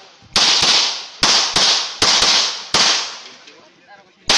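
Pistol shots fired mostly as quick double taps, each trailing off in a long echo. Three pairs and a single shot come in the first three seconds, then one more shot near the end.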